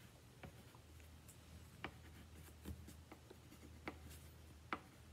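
Faint scratching of a coloring pencil or crayon on a paper worksheet, with a few light taps against the table.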